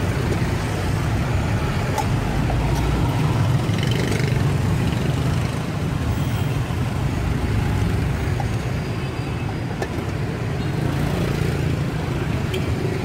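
Steady rumble of street traffic, with a few faint clicks.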